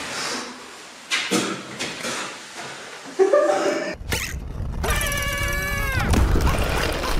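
Cartoon sound effects: scattered rustles and knocks, then a high squealing cry lasting about a second that bends downward at its end, over a low rumble.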